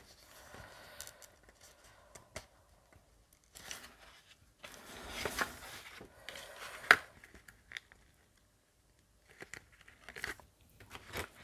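Scrapbook paper and card rustling and sliding in short spells as a pop-up piece is pushed further in and the page folded, with a few light clicks, the sharpest about seven seconds in.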